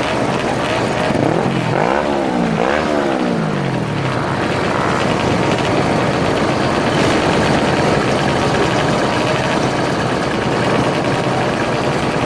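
Moped engines running on the move, a steady mix of engine and rushing noise; about a second in, one engine revs up and back down twice in quick succession.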